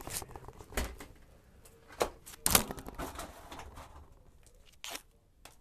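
Several separate knocks and clatters of a furnace filter and its metal retaining bar being handled and fitted into the furnace, the loudest about two and a half seconds in.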